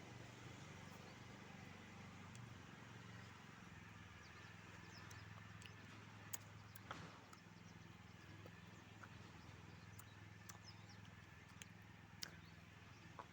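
Near silence: a faint steady low hum with a few scattered faint clicks.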